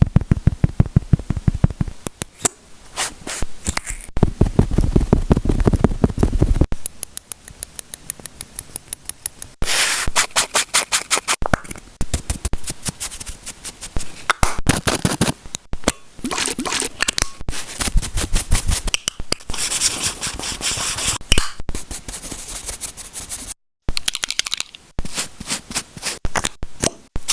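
Makeup brush bristles scrubbed back and forth, a rapid run of scratchy strokes several times a second, in separate stretches that start and stop abruptly.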